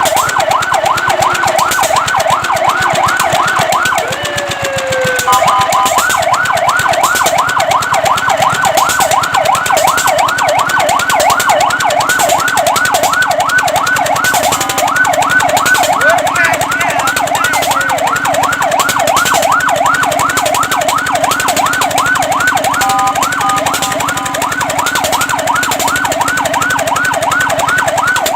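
Electronic fire truck siren in a fast yelp, about four rising sweeps a second. Twice it briefly changes to a slower falling tone and steady held notes before the yelp resumes.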